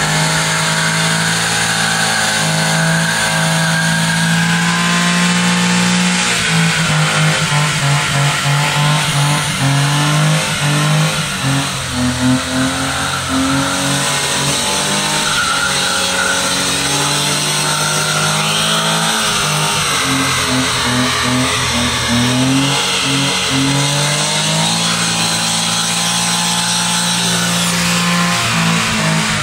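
Suzuki Carry kei truck's small three-cylinder engine held at high revs during a burnout, the rear tyres spinning and squealing with the differential locked. The engine pitch holds steady for long spells but wavers and dips a few times, around a third of the way in and again about two-thirds through.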